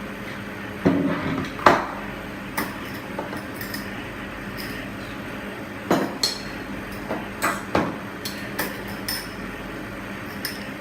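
A spoon knocking and clinking against kitchen dishes in a scattering of sharp, irregular taps while paste is spooned into the chicken marinade, the loudest knock about two seconds in.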